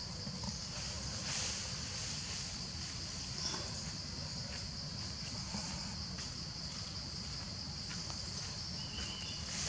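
Steady, high-pitched chorus of insects over a low, even rumble, with a few faint ticks and rustles and a brief high note near the end.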